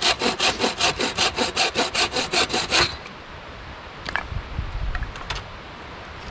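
Bow saw cutting a thin dead branch in quick, even strokes, about five a second, stopping about three seconds in. A few faint knocks follow.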